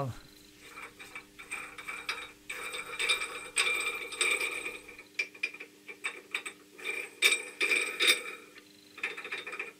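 Bronze vise nut spun by hand along its threaded screw, clicking and rattling on the thread in irregular bursts. The threads are well worn, so the nut rattles loosely.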